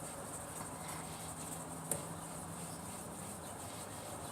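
Quiet steady background hiss with a faint low hum, and a single light click a little under two seconds in.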